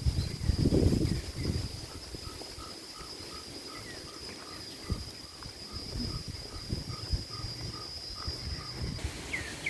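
An insect, cricket-like, keeps up a steady high-pitched trill that stops near the end. A run of short, evenly spaced notes repeats about twice a second alongside it. Low rumbles and knocks, loudest about a second in, sound underneath.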